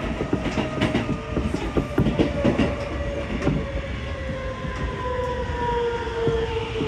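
Electric commuter train heard from inside the car: a run of wheel clicks over rail joints in the first few seconds, then the traction motors' whine gliding steadily down in pitch as the train slows into a station, over a constant running rumble.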